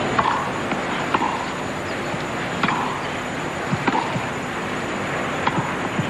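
Tennis rally on grass: rackets strike the ball about every second and a half, five sharp hits over a steady background hiss.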